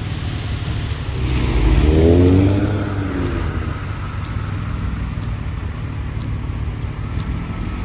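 A motor vehicle drives past close by: its engine gets louder and rises then falls in pitch about two seconds in, over a steady low engine rumble.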